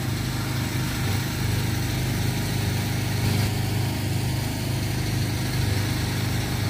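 Engine-driven generator running steadily with an even low hum.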